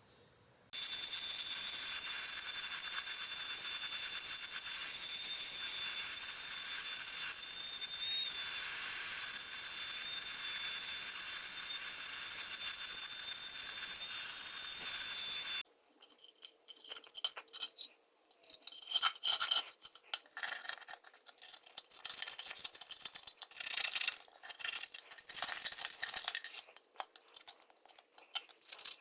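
A steady high hiss with a faint whine runs for about fifteen seconds and stops suddenly. Then come irregular scrubbing and scraping strokes on the milling machine's metal parts as hardened, dried oil is cleaned off them.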